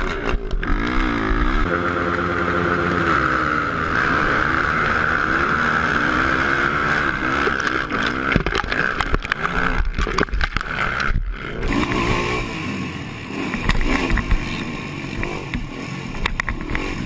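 Racing quad ATV engines running hard on a dirt track, heard from an onboard camera, with the pitch rising and falling as the throttle opens and closes and the gears change. The sound changes abruptly about twelve seconds in.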